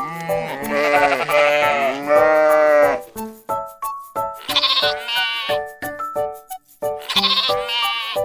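Sheep bleating four times, each a long, quavering bleat, over light children's background music.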